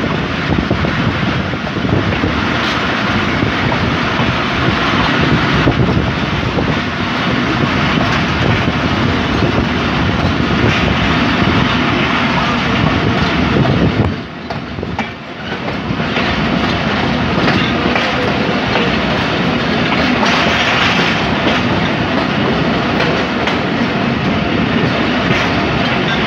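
Pakistan Railways Jaffer Express passenger train running along the track: steady wheel-on-rail rumble and clickety-clack of the coaches, heard from an open coach window. The noise dips briefly about halfway through.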